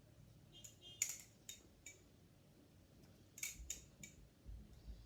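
Glidr Antarctic balisong (butterfly knife) being flipped: its aluminium sandwich-built handles click and knock as they swing around the blade, in scattered sharp clicks, the loudest about a second in and a cluster a little after three seconds in.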